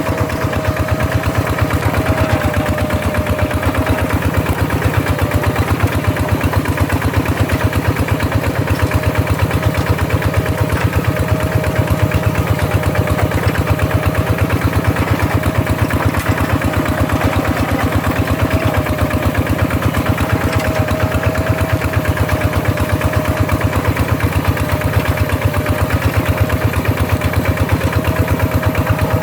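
Paddy-field hand tractor's engine running steadily with a fast, even firing beat and a thin steady whine above it.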